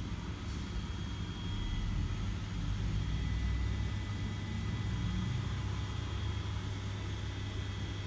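A vehicle running at idle: a steady low rumble, with a faint steady high-pitched whine over it. No siren is sounding.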